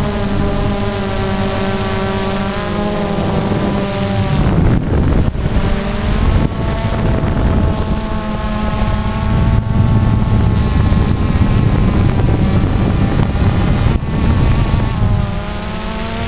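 Quadcopter drone's motors and propellers whining steadily, the pitch shifting up and down as it manoeuvres. Rushing wind noise with a few knocks drowns the whine for a couple of seconds about four seconds in.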